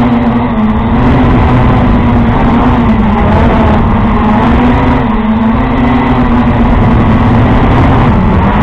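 Quadcopter drone's electric motors and propellers buzzing in flight, picked up loud and close by the camera mounted on the drone. The steady hum wavers up and down in pitch as the throttle changes.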